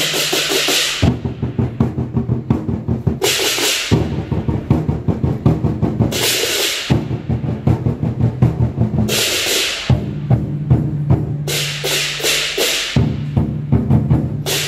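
Large Chinese drums beaten in a fast, steady run of strokes as dragon-dance accompaniment. A bright crash rings out over the drumming every three seconds or so.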